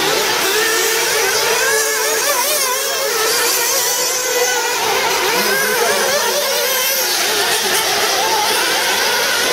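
A pack of 1/8-scale nitro RC off-road buggies racing: several small glow engines buzzing at a high pitch and revving up and down without a break.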